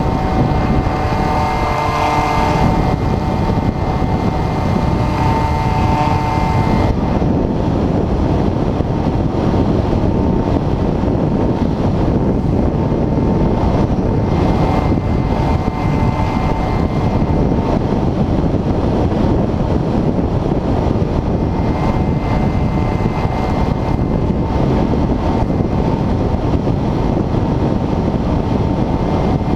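Wind rushing over the onboard camera of a flying RC glider, loud and steady, with a faint steady whine from its motor underneath. The hiss thins out about seven seconds in.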